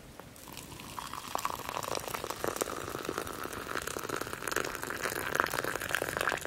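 Liquid being poured into a metal cup, a steady splashing pour whose pitch rises slowly as the cup fills.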